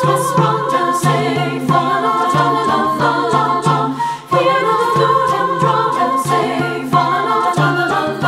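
Three-part mixed choir singing a stately Renaissance-style canon in madrigal-style counterpoint, with a flute line and hand-drum strokes keeping a steady beat.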